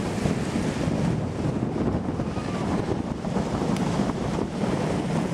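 Wind buffeting the microphone, a steady rough rumble, over the wash of small waves breaking on the shore.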